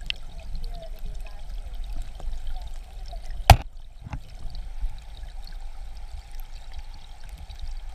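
Flowing river water recorded underwater: a steady low rumble with trickling, and one sharp knock about three and a half seconds in.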